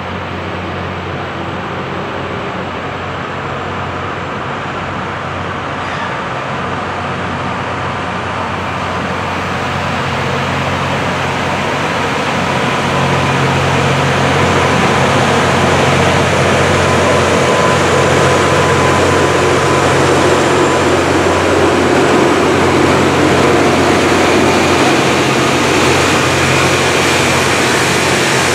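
Loram rail grinder train grinding the rails as it approaches and passes: a steady hiss of grinding stones on the rail over the low hum of its diesel engines. It grows louder over the first half, then holds steady.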